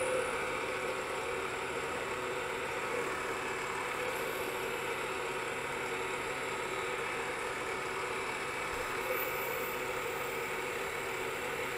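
Wood lathe running steadily with the spindle turning. A guitar-string wire is held taut in a groove against the spinning wood, friction-burning a dark decorative ring.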